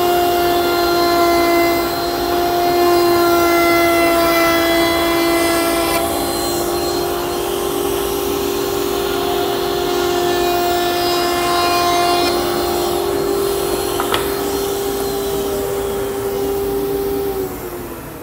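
Table-mounted router spinning a 1-inch core box bit and cutting a shallow cove in a dense cocobolo board: a steady high motor whine with the hiss of the cut. Near the end the router is switched off and its whine falls in pitch as it spins down.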